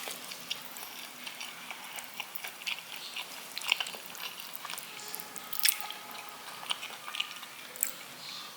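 Close-miked mukbang ASMR eating: a person chewing and biting food, giving a stream of irregular wet clicks and crunches, with the sharpest bites about two, three and a half, and five and a half seconds in.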